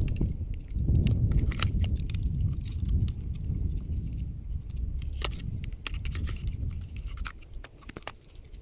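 Irregular small clicks and rattles of a LiPo battery and its plug leads being handled and pushed into the chassis of an HPI Jumpshot Flux RC car, over a steady low rumble.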